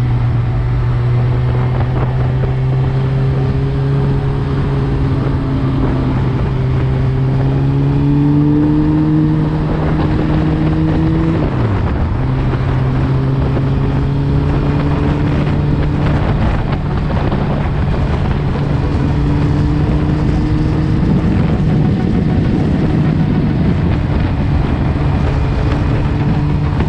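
Suzuki GSX-R1000 inline-four with an Akrapovic full exhaust, running at a fairly steady cruise under a heavy rush of wind noise. Its pitch creeps slowly upward, drops sharply for a moment about twelve seconds in, then picks back up and holds.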